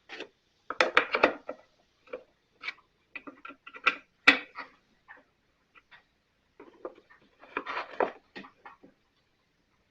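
Irregular clicks, taps and knocks of hand tools and parts being handled while a backpack blower is taken apart, with a small flurry about a second in, the sharpest knock a little after four seconds, and another flurry near the end.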